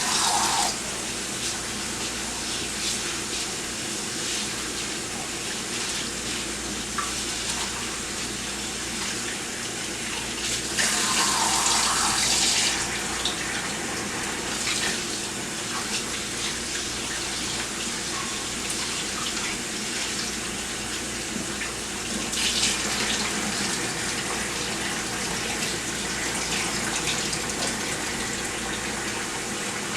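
Kitchen tap running steadily while rice is rinsed under it, with the water louder for a second or so about 11 seconds in and again briefly around 22 seconds.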